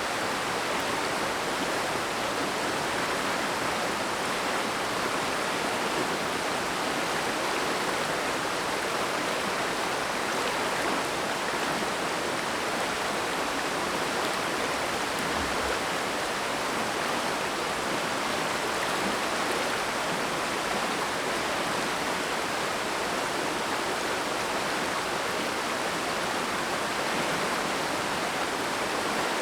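Oirase mountain stream flowing, a steady, even rush of water with no pauses or changes.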